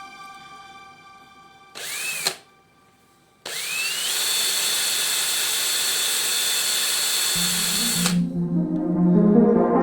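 Handheld electric power tool, such as a drill, triggered briefly once with a short rise and fall in pitch. About a second later it runs for about four and a half seconds, its whine climbing quickly to a steady high pitch before it stops.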